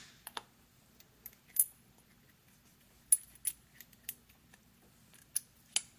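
Small steel stop rings and washers on a lathe cross-slide handwheel shaft clicking and clinking against each other and the metal hub as they are handled, an irregular scatter of sharp metallic clicks, a few ringing briefly.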